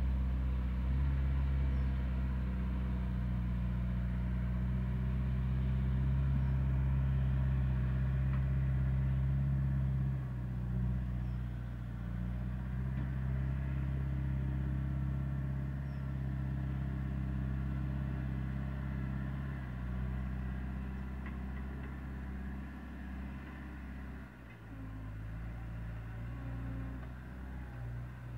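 Tractor engine running with a steady low drone that shifts in pitch and level a couple of times as it works across a steep hillside.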